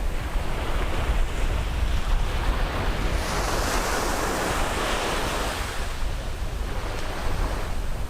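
Sea waves on a beach: a wave breaks and washes in about three seconds in, then fades out by about six seconds, over a continuous surf wash. A steady low rumble of wind on the microphone runs underneath.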